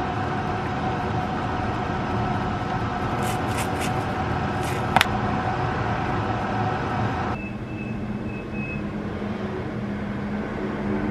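Steady mechanical hum, like a kitchen fan or appliance running, with a few light ticks of seasoning being shaken on and one sharp click about five seconds in. The hiss on top of the hum cuts off suddenly about seven seconds in, leaving a lower hum.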